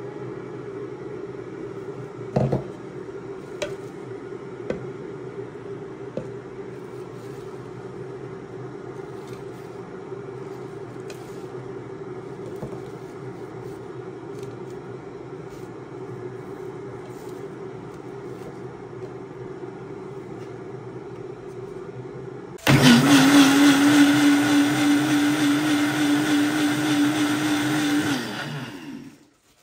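Personal bullet-style blender motor switching on about three-quarters of the way through and running loudly at a steady high speed for about five seconds while it blends yogurt and mint leaves, then winding down and stopping. Before that there is a steady low hum with a few light clicks and knocks.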